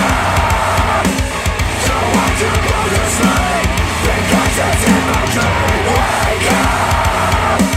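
Loud, heavy rock track with drums and a driving beat, played back through ELAC Debut Reference DBR-62 bookshelf speakers driven by a Rotel A12 integrated amplifier.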